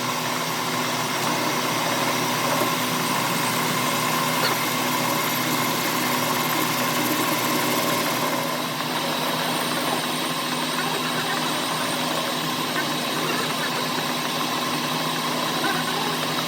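Petter engine running steadily at idle.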